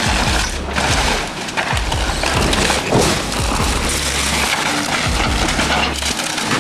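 Background music with a deep bass line in long held notes, over a dense wash of noise.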